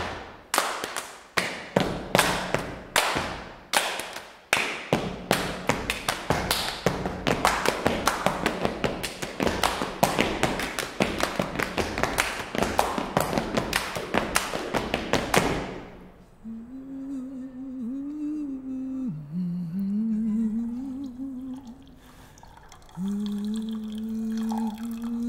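Fast, irregular percussion hits that stop after about sixteen seconds. A voice then hums a slow, wavering melody, breaks off briefly, and comes back on one long held note near the end.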